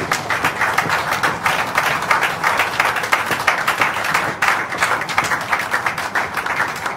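A room full of people applauding: dense clapping that breaks out suddenly and keeps going.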